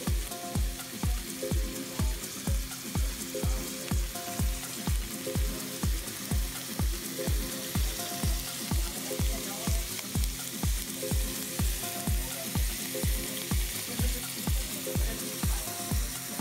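Diced bacon sizzling and spitting in a hot cast-iron skillet, stirred with a wooden spoon. Background music with a steady beat of about two a second runs over it and is the loudest part.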